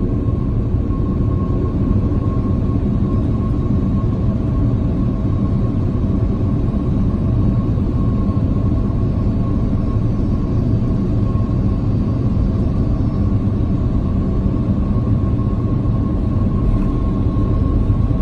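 Jet airliner cabin noise heard from a window seat beside the turbofan engine while the plane descends to land: a steady low rumble with a thin, steady whine above it.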